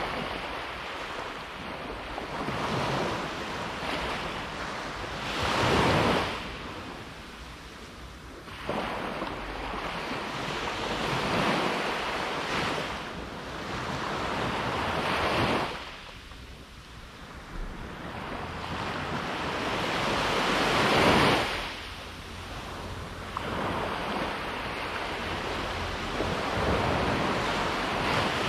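Sea waves breaking and washing up a beach, the hiss of surf swelling and ebbing about every four seconds, with two larger breakers about six seconds in and again near twenty-one seconds.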